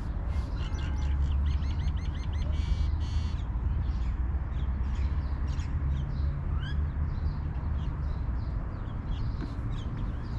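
Small birds chirping, with short repeated chirps and quick rising notes, including a rapid run of chirps about two seconds in, over a steady low rumble.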